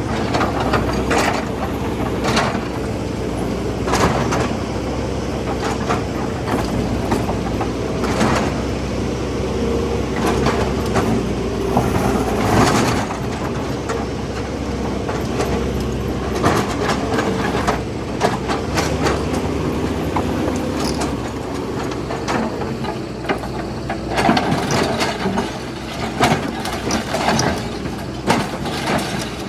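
Hitachi excavator's diesel engine running steadily, with repeated irregular crashes, cracks and crunches of a house's structure and debris being broken up and torn down.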